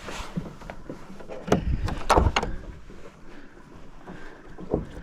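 Handling noise on a kayak: a few short, sharp knocks and clatters over a low rumble, four of them close together in the middle and one more near the end.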